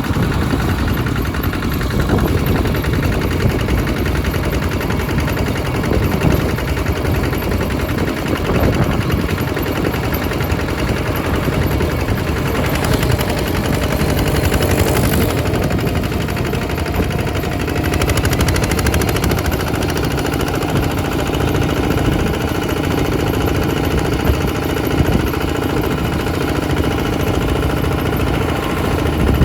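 Single-cylinder diesel engine of a two-wheel walking tractor running steadily with a rapid, even chugging knock.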